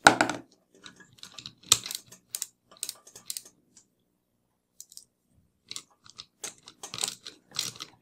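Screwdriver turning a screw into the centre of a vacuum cleaner motor: a sharp click at the start, then irregular small metal clicks and scrapes of the bit and screw, with a pause of about a second midway.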